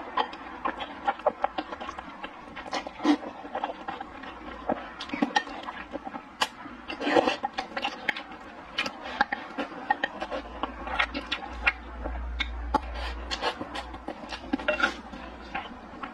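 Slurping sweet potato glass noodles and wet chewing, full of short smacking and clicking mouth sounds, with a longer slurp about seven seconds in.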